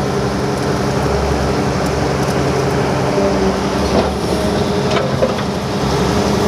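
Excavator diesel engine running steadily under work, with a couple of short knocks about four and five seconds in.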